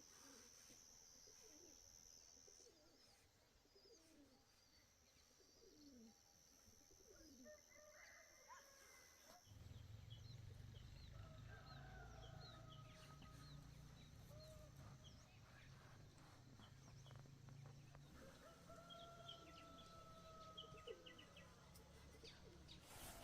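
Faint chickens: hens clucking, with small high chirps, and a rooster crowing twice, first about eleven seconds in and again later. A low steady hum comes in about halfway through.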